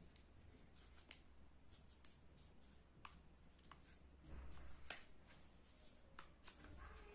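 Faint scattered clicks and hand-handling of a DJI OM4 smartphone gimbal's plastic parts, with a brief louder rustle and click about five seconds in.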